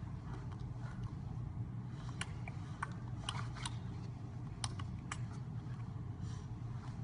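A steady low hum with a scattered run of short, sharp clicks in the middle, about a dozen over three seconds.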